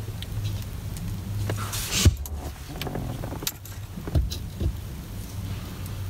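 Small metal clicks and clinks of bolts and hub parts being handled while a steering wheel is fitted onto an aftermarket hub. There are a few sharper knocks, the loudest about two seconds in, over a low steady hum.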